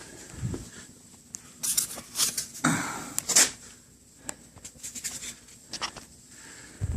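Handling noise: scattered clicks and short rustles, with a cluster of louder scrapes and rustles about two to three and a half seconds in.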